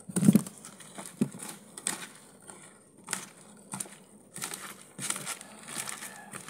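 A hand squeezing and kneading salted slices of bitter melon in a plastic colander, working out the bitter sap: irregular wet squelches and crackles, with a dull thump about a third of a second in.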